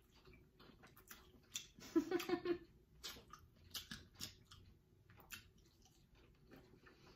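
A person chewing a mouthful of dumpling: faint, close mouth sounds with small clicks and smacks.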